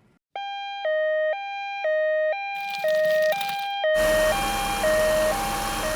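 Electronic two-tone ambulance siren alternating steadily between a high and a low note, each held about half a second. A broad rushing noise joins it about four seconds in.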